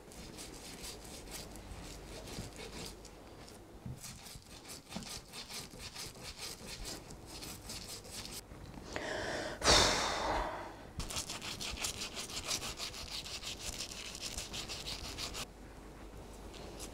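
Toothbrush scrubbing plumber's mate off the threads of a sink waste, in quick back-and-forth scratchy strokes. The strokes come in two spells, broken about halfway by a brief, louder whoosh.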